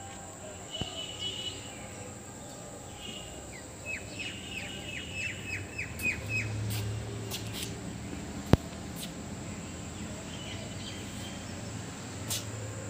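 Birds calling: scattered chirps and, about four seconds in, a quick run of about nine short falling notes. A single sharp click about eight and a half seconds in.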